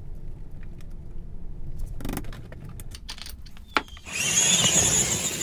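Small metal parts clicking and clinking as an aluminium wheel hex is handled and offered up to an RC crawler's axle, with a couple of sharper knocks. About four seconds in, a louder, steady sound with a high hiss takes over.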